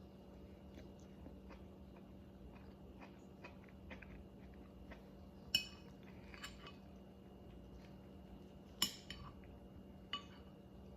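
Someone eating a meal: faint small ticks and chewing, with a few sharper clinks of cutlery against a dish, the loudest about five and a half and nine seconds in.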